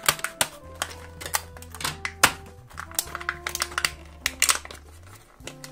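Scissors snipping clear plastic packaging, and hard toy plastic clicking and crackling as a small accessory is worked free, in a run of irregular sharp clicks. Background music with held notes plays underneath.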